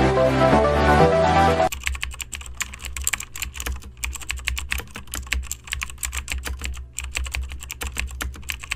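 Electronic music that cuts off suddenly about two seconds in. Computer keyboard typing follows: quick, uneven key clicks with short pauses, over a faint low hum.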